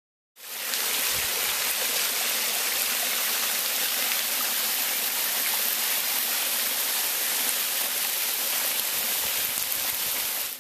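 Small woodland creek trickling over rocks: a steady sound of running water. It comes in suddenly just after the start and cuts off abruptly.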